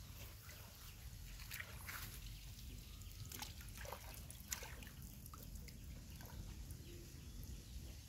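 Water dripping and trickling back into a shallow pond, with small scattered splashes, as handfuls of wet azolla are scooped out of it.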